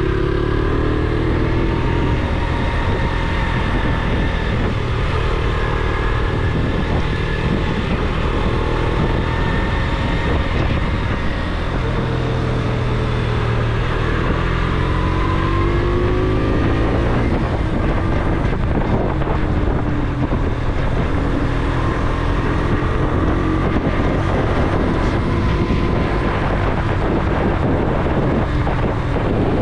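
Motorcycle engine running under way, its pitch rising and falling several times as the rider accelerates and eases off, over a steady rush of wind on the microphone.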